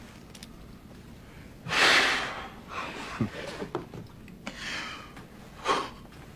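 A man gasping and sobbing, overcome with emotion: a loud gasp about two seconds in, then a few shorter sobbing breaths.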